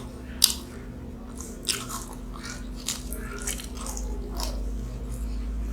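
Close-up eating of Mughlai paratha, an egg-stuffed fried flatbread: bites and chewing with scattered short crisp crunches, the sharpest about half a second in.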